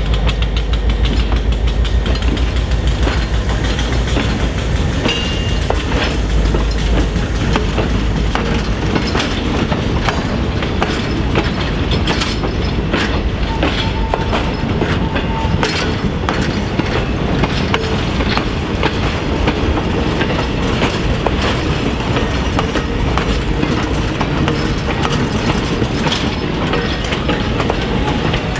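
Passenger train cars rolling past close by, their steel wheels clicking steadily over the rail joints. The low diesel rumble of the departing locomotive fades out in the first several seconds. Two short, faint wheel squeals sound about five seconds in and again around fourteen seconds.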